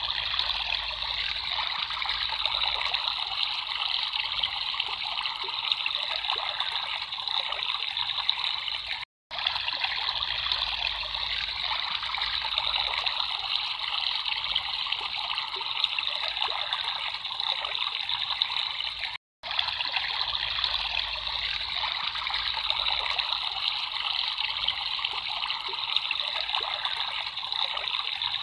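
Water trickling steadily, like a small stream. The sound cuts out to silence for an instant twice, about nine and nineteen seconds in.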